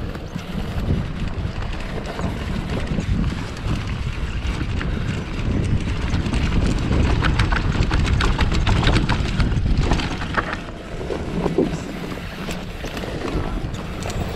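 Wind rushing over the microphone of a mountain bike riding down a dirt trail, with the bike rattling and knocking over rough ground. The clatter is thickest a little past the middle.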